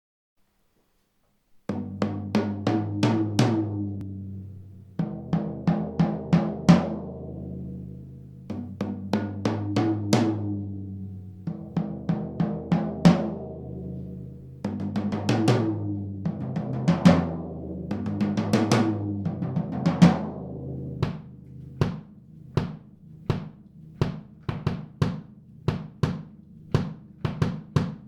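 A birch-shell Liberty drum kit played on its own, recorded through a GoPro camera's built-in microphone with no effects: after a moment of silence, a series of quick fills across the snare and toms with the toms ringing out and bass drum underneath, then a run of evenly spaced strokes about twice a second near the end.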